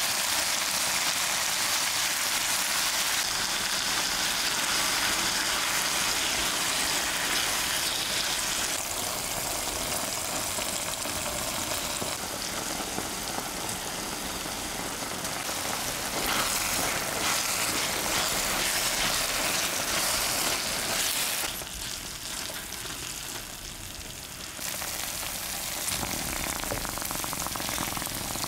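Minced beef and onion frying in a pan, a steady sizzle that dips quieter for a few seconds late on.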